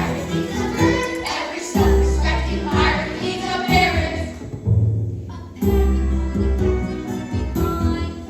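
A song from a stage musical: a group of voices singing together over an accompaniment with heavy, repeated low notes.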